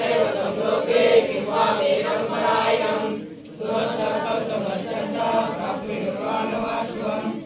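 A group of voices chanting a devotional Krishna chant in unison, with a short breath pause about three seconds in.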